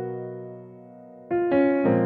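Piano music: a held chord slowly dying away, then new notes struck about a second and a half in.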